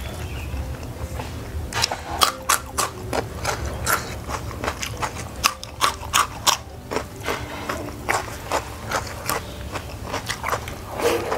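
Close-up chewing of a raw winged bean pod (kecipir): a quick run of crisp crunches that thins out to slower, softer chewing toward the end.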